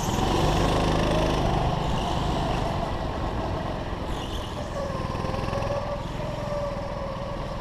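Go-kart engine running while the kart is driven through a series of corners, its pitch wavering down and back up a little with the throttle, over a steady low rumble.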